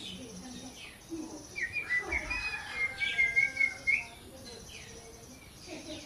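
Indian ringneck parakeet chirping: a quick run of short, high chirps lasting about two seconds in the middle, with fainter chirps before and after.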